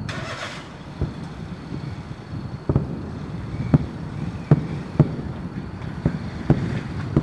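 Distant aerial firework shells bursting: about eight dull booms at uneven intervals of roughly a second, over a steady low rumble. A brief hiss sounds in the first half second.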